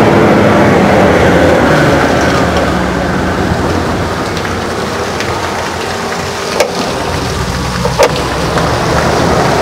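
Cement mixer truck's engine running while dirty wash water pours from the drum's chute and splashes onto the ground. Two sharp clicks about a second and a half apart in the second half.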